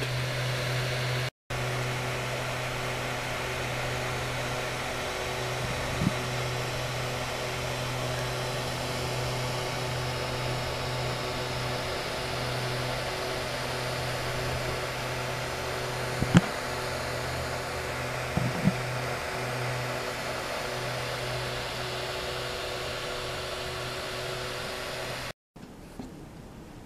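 Flsun i3 3D printer's cooling fans running with a steady hum and a few faint clicks, the print just finished. The hum cuts off abruptly near the end.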